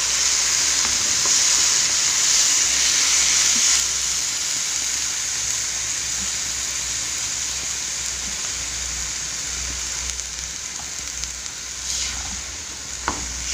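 Oncom and chillies sizzling in a frying pan as a wooden spatula stirs them, just after water has been added to the hot pan. The sizzle is loud at first and drops to a quieter steady frying about four seconds in, with a brief click near the end.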